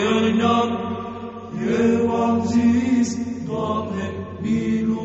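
Orthodox Byzantine chant sung in Romanian: chanters draw out a slow melismatic line over a steady held drone (the ison). The melody breaks off briefly about a second and a half in, then resumes.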